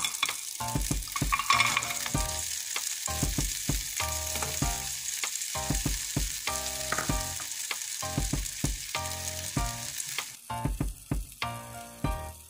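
Frozen blueberries poured into a small non-stick frying pan, clicking and rattling against the pan and each other, over a steady hiss that cuts off about ten seconds in.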